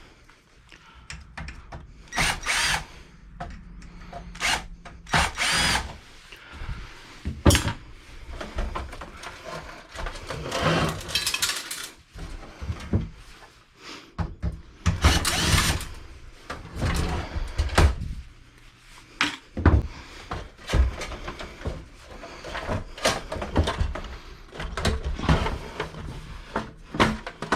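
Power drill run in repeated short bursts with brief pauses and some knocks of metal in between, backing screws out of an old desktop computer's case to take out its power supply.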